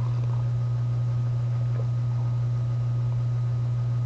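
A steady low hum runs throughout, with a few faint soft sips from a mug of milk.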